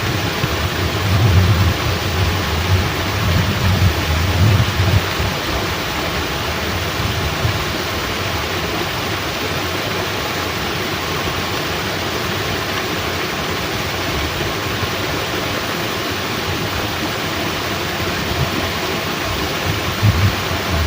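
Heavy rain and rushing water from a fishpond sluice gate making a steady, loud hiss, with low rumbling in the first few seconds.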